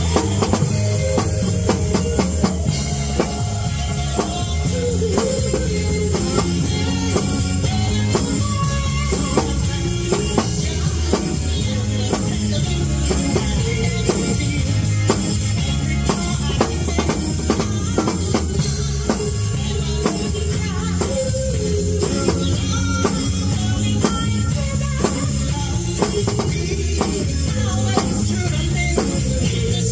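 Acoustic drum kit played along with a rock song that has singing and guitar: a steady beat of drum and cymbal hits over the music.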